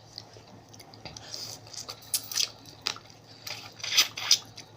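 Close-up chewing of a mouthful of spicy seafood papaya salad, with a few short wet smacking bursts, most of them in the second half.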